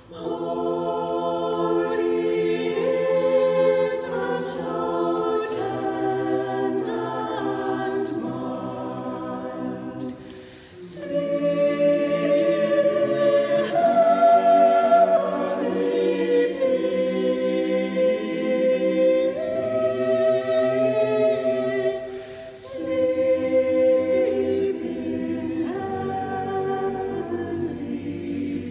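Mixed church choir of men's and women's voices singing a carol in sustained sung phrases, with brief breaks between phrases about ten seconds in and again a little past twenty seconds.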